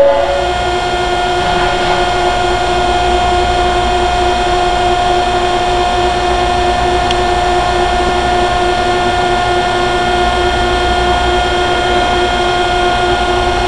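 Steady, loud industrial machine hum with several fixed tones, unchanging throughout.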